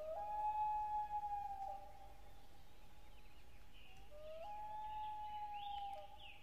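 Two long wailing calls about four seconds apart, each stepping up in pitch at the start, held for about a second and a half, then dropping at the end. Short falling chirps, like birds, come in near the end.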